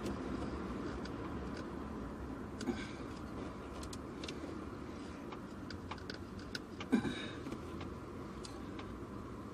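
Small clicks and taps of hands working a plastic wiring connector free, with one louder knock about seven seconds in, over a steady low background noise.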